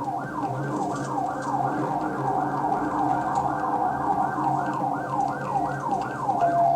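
Police car siren in fast yelp mode, its pitch sweeping up and down about three times a second without a break.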